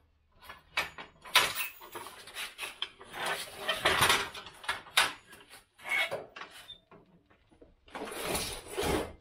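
Metal clanks, knocks and rattles from a steel-framed field drag being hitched to a utility vehicle's rear hitch, with two longer stretches of scraping as the drag is shifted on the concrete floor, about four seconds in and near the end.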